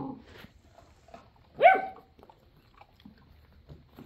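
A puppy gives one short, high bark about a second and a half in, with faint scuffing and rustling of straw from puppies at play.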